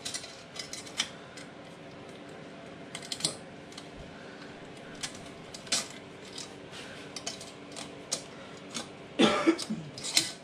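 Scattered small metallic clicks and taps of parts and fasteners being handled by hand while fitting an ATV exhaust, irregular and light, with a louder burst of noise about nine seconds in.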